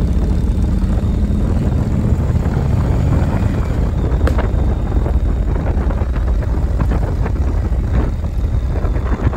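Steady low rumble of a moving vehicle, engine and road noise, with a few short clicks about four seconds in and again near the end.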